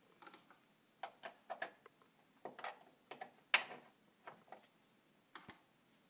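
Irregular clicks and taps of a USB plug knocking against the back panel of a television as it is fitted into the port, the sharpest about three and a half seconds in.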